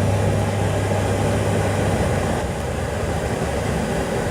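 Steady road and engine noise inside a moving car, with a low hum that fades out about two seconds in.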